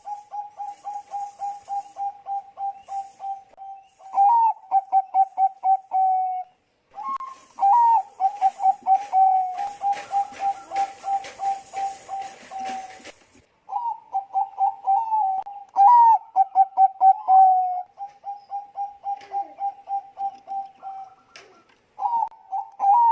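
Zebra dove of the Thai-bred song line (perkutut bangkok) cooing: four phrases of rapid staccato coo notes, each several seconds long, separated by short pauses. A faint rustling noise sits under the second full phrase.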